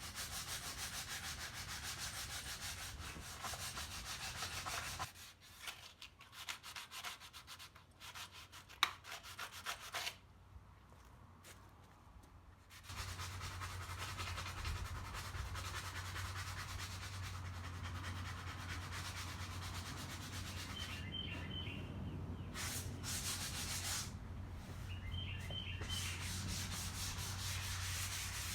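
Sanding glazing putty on the underside of a Chevrolet C10 dash cover: steady rasping abrasion that breaks up into short irregular strokes and pauses for several seconds around the middle, then runs steadily again. Faint bird chirps come through a few times near the end.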